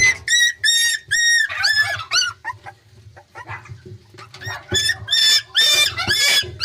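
Puppies whimpering and yelping in a series of short, high-pitched squeals, several a second, easing off briefly in the middle before starting up again.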